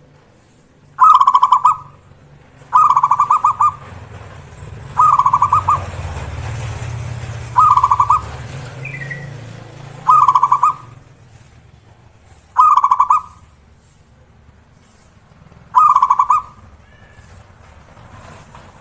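Zebra dove (perkutut) singing its staccato cooing song: seven short, rapid trilled coos repeated every two to three seconds. A low rumble runs under the middle few calls.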